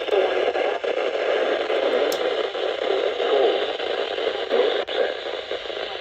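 Weather radio receiver hissing and crackling with static, a weak broadcast signal, with only faint traces of the announcer's voice underneath.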